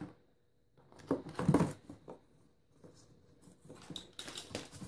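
Handling noise from parts and cables being sorted in a cardboard box: a light click at the start, a short cluster of knocks and rustles about a second in, then quieter rustling and clicks toward the end.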